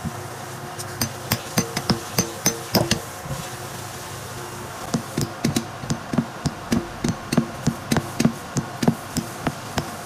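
Hammer striking metal in quick repeated blows, about two to three a second, each with a short ring. The blows come in two runs, with a pause of about two seconds between them.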